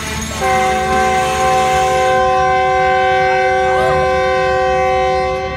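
Train horn sounding one long, steady blast of several tones together, starting about half a second in and cutting off near the end, over the rumble of a passenger train rolling past on the rails.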